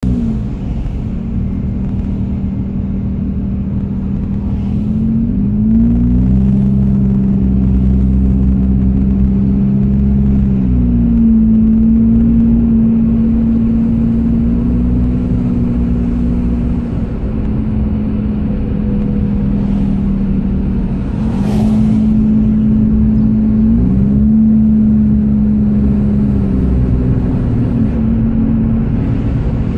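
Engine and road noise of a moving car heard from inside its cabin: a steady engine hum whose pitch steps up and down several times as the car speeds up and eases off, with a brief hiss about two-thirds of the way through.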